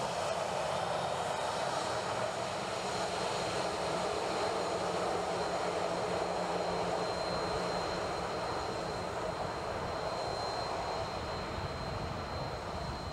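Boeing 737-700 Business Jet's twin CFM56-7 turbofans running at taxi power: a steady jet rush with a low rumble and a thin high whine, easing off slightly near the end as the jet moves away.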